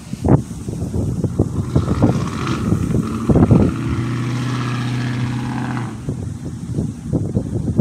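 A motor vehicle's engine running close by, a steady hum that stops about six seconds in, with irregular knocks and rustles throughout.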